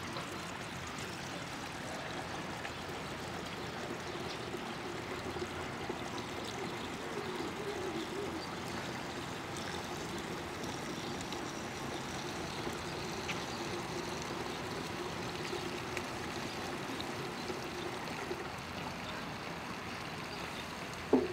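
Water poured steadily from a watering can over a tabletop stormwater model, trickling and splashing as it runs through the model's drain into its small pond tank.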